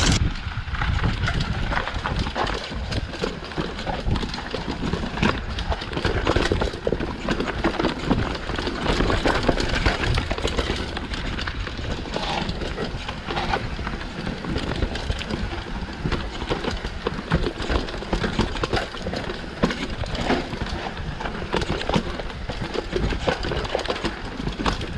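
Mountain bike riding fast down a rough downhill trail: a continuous clatter of knocks and rattles as the tyres run over dirt, roots and rocks and the bike shakes.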